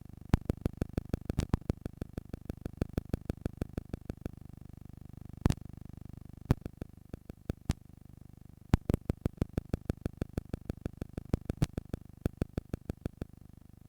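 Playback of an old Sony HF Type I cassette tape: low hiss and hum under a fast, steady run of clicks, about five a second, with a few much louder pops.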